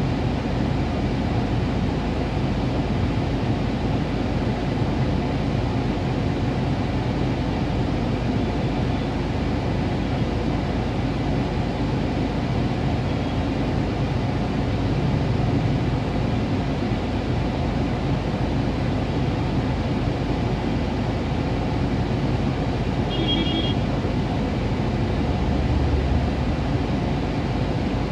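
Steady low rumble inside a car stopped in traffic: the engine idling under the hum of street traffic. A brief high-pitched tone sounds near the end.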